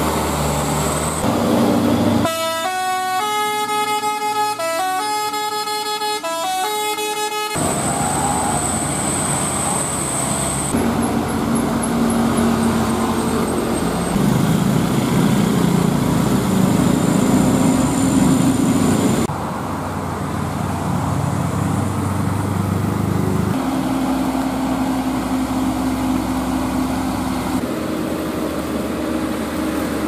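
Diesel engines of loaded light dump trucks labouring uphill, in a series of clips that change abruptly. About two seconds in, a telolet musical horn plays a stepped multi-note tune for about five seconds.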